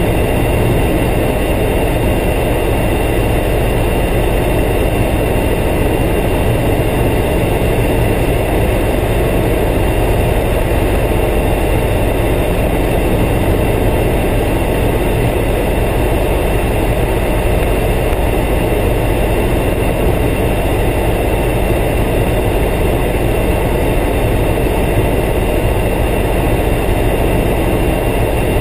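Cabin noise of an AS365 N3 Dauphin helicopter in flight: the steady drone of the main rotor and twin turboshaft engines, with a faint high whine over it. The sound is loud and holds constant throughout.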